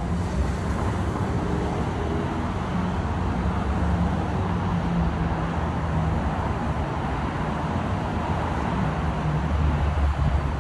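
City street traffic: vehicle engines running with a steady low hum over the general noise of cars on the road.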